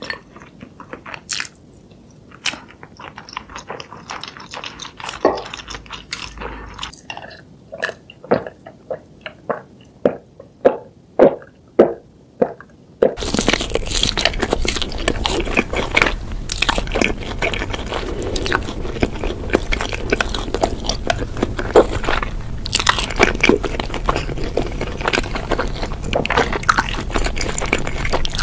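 Close-miked eating sounds: first wet chewing of a spicy saucy dish as separate sharp clicks and smacks, several of them loud. About halfway the sound turns louder and denser as sauced fried chicken is bitten and crunched.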